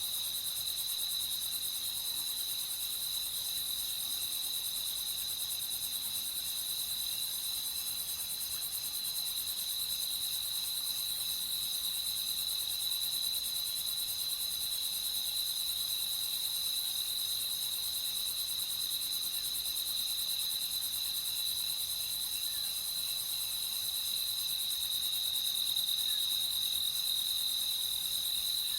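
Night insect chorus of crickets trilling steadily: one continuous high trill, with fainter higher trills and a dense high hiss of insects above it.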